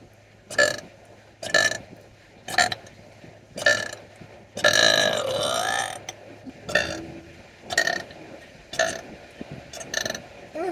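A person burping over and over: short burps about once a second, with one long drawn-out burp about halfway through whose pitch dips and then rises.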